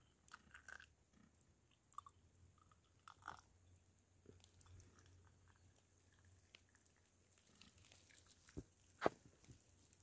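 Near silence with faint, scattered clicks and taps from a metal Turkish teapot and glass tea glasses as tea is poured. A sharper knock comes about nine seconds in.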